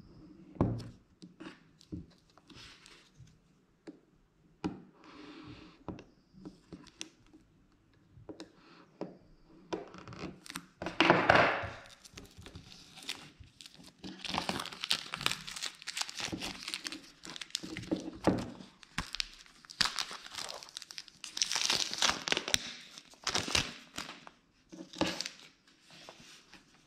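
Plastic shrink-wrap being slit with a knife and then torn and peeled off a small cardboard product box, crinkling and crackling in irregular bursts with sharp ticks. The loudest tear comes about eleven seconds in, followed by a long busy stretch of crinkling.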